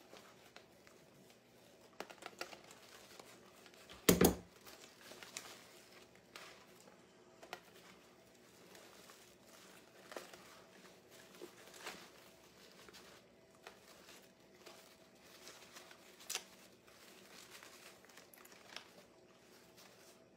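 Faint rustling and crinkling of ribbon being handled and arranged, with scattered small clicks and one sharp thump about four seconds in.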